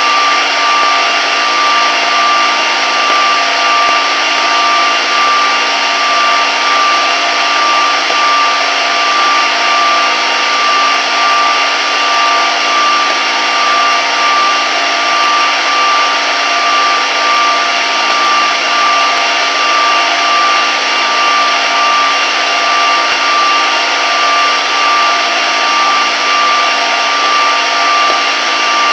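Old radio receiver hissing with steady static, off a station, with a steady whistle tone and a few fainter tones running through the noise.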